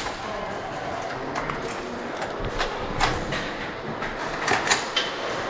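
Scattered airsoft gun shots, single sharp cracks a second or so apart with a quick cluster near the end, over a steady hiss of background noise.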